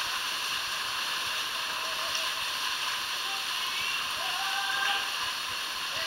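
Steady rushing of water from a waterfall and the stream running through a narrow rock gorge.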